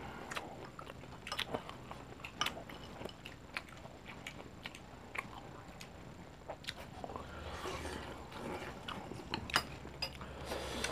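People chewing and biting stir-fried pork, with scattered sharp clicks and smacks and a louder stretch of chewing about three-quarters of the way in.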